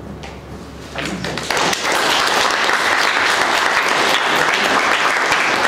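Audience applauding at the end of a talk, starting about a second in and building quickly to steady clapping.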